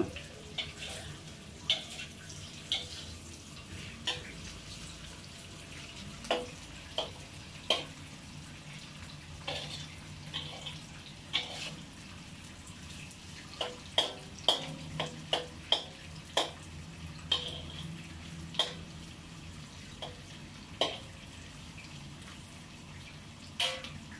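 Metal spatula knocking and scraping against a wok while stir-frying: about twenty irregular clanks with a short ring, over a steady low hiss.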